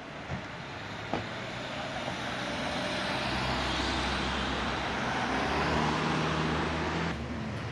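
A road vehicle driving past close by: engine hum and tyre noise swell over several seconds, then drop away abruptly near the end.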